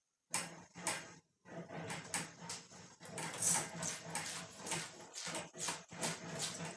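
Steel patch panel being rolled back and forth through a benchtop English wheel: sheet metal rumbling and rattling in quick, uneven strokes, a few per second.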